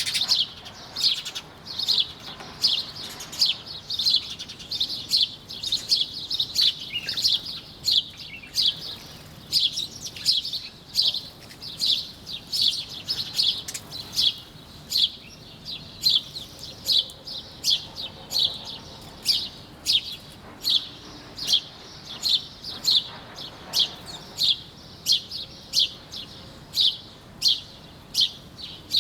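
Small birds chirping: a steady string of short, high chirps, about two a second.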